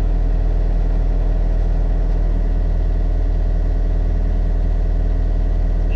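Mini excavator's diesel engine running steadily at an even speed.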